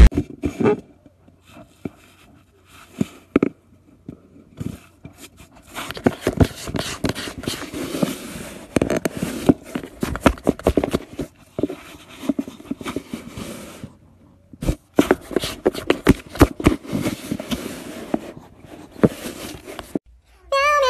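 A cat chewing and biting very close to the microphone: a dense run of clicks, crackles and scrapes, with a brief break partway through.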